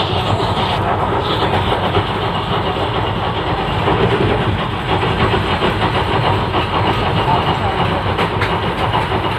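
Wheels and running gear of a passenger train coach running steadily over the rails at speed.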